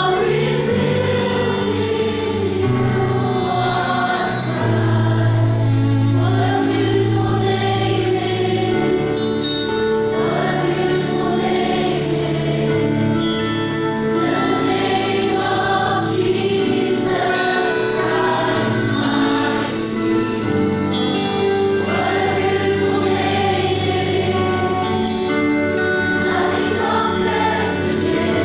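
Live worship band and group of singers performing a praise song, with voices singing the melody over long held bass notes.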